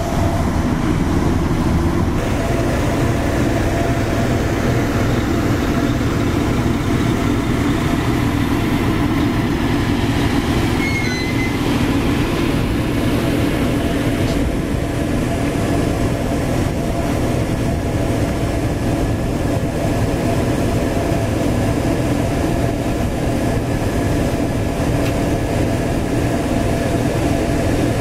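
Heavy diesel engine running steadily at a constant speed.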